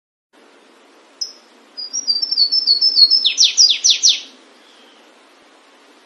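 Flavescent warbler (canário-do-mato) singing one song: a quick run of high notes that grows louder and ends in about five loud, steeply down-slurred notes, over a faint steady hiss.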